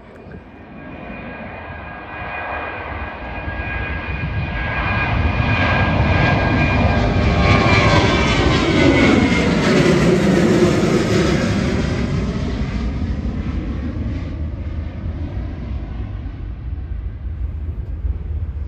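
Twin-engine jet airliner climbing out after take-off and passing overhead. Its engine noise builds for several seconds, peaks when the aircraft is overhead, with the whine dropping in pitch, then fades as it flies away.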